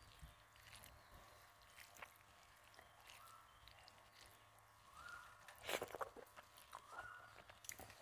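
Fingers mixing rice and dal on a plate: faint soft squishes and light clicks, with a louder cluster of clicks about six seconds in.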